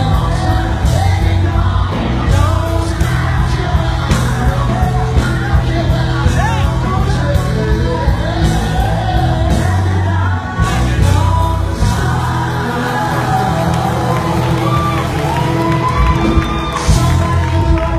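Live gospel music: a vocal group singing over a band with a strong bass line, with the audience shouting and whooping along.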